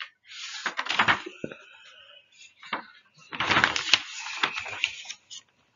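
Rustling and light knocks of a paper textbook being leafed through, in two bursts of page handling.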